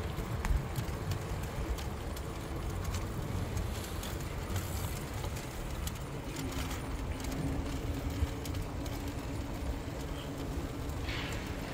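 Aventon Aventure 2 fat-tyre e-bike riding slowly with a child trailer in tow: a steady low rumble of rolling, with scattered light clicks and rattles. A steady hum comes in about six seconds in.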